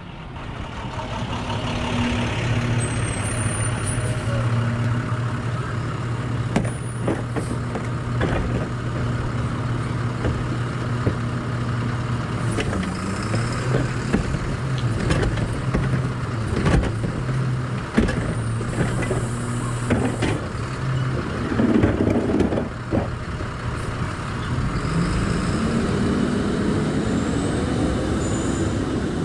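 Diesel garbage truck idling at the curb while its hydraulic cart tipper lifts a wheeled trash cart and shakes it out, with a run of knocks and bangs as the cart is emptied. Near the end the engine revs with rising pitch as the truck pulls away.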